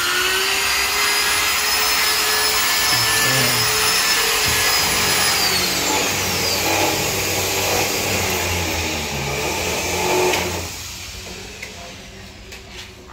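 A power tool's electric motor running with a steady high whine that dips in pitch about six seconds in, then stops about ten seconds in.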